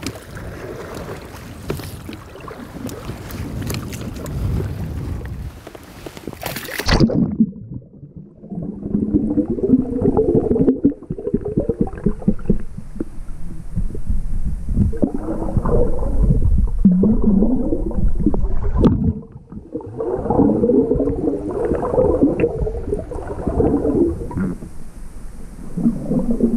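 Wind and water noise around a small boat, ending in a sharp splash about seven seconds in. After that the sound turns dull with the high tones gone: water gurgling and sloshing as heard through an underwater camera's microphone.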